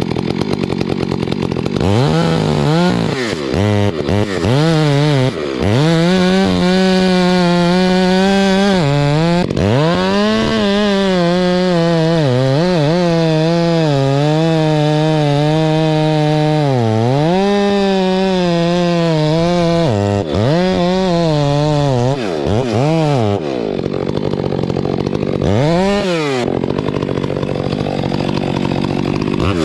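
Stihl two-stroke chainsaw cutting wood at full throttle in long steady stretches. Between cuts it drops back and revs up again several times, and near the end it runs lower and unsteadily.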